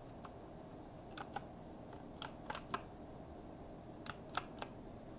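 Computer keyboard keys being pressed one at a time, typing a word: sharp key clicks in small bunches about a second apart, with pauses between them.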